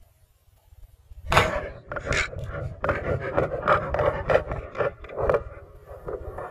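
Irregular scraping and rubbing noise in short rasping strokes, setting in suddenly about a second in. This is handling noise of gear rubbing against an underwater camera.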